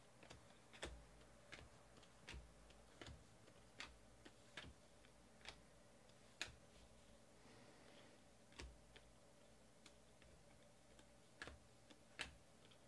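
Faint, short clicks at uneven intervals, about one a second with a pause in the middle: trading cards being handled and flipped one by one through a stack.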